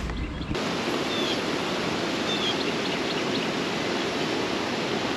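Steady rushing hiss of a small waterfall pouring over rocks into a creek, starting abruptly about half a second in.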